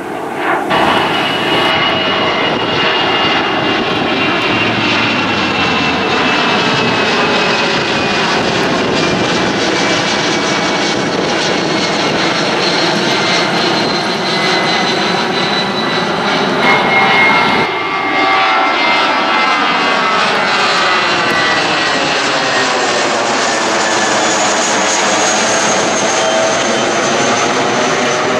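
Twin-engine jet airliners climbing out overhead, their engines giving a loud, steady rush with slowly falling and rising tones as each plane passes. The sound changes abruptly about two seconds in and again a little past halfway, as a different jet takes over.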